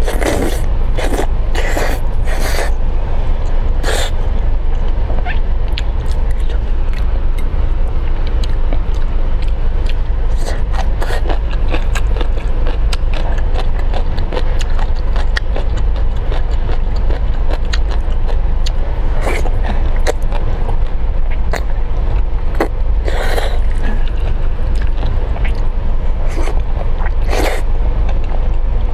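Close-miked eating of black-bean-sauce noodles (jajangmyeon): repeated wet slurps of noodle strands and mouth clicks, with a few longer, louder slurps, over a steady low rumble.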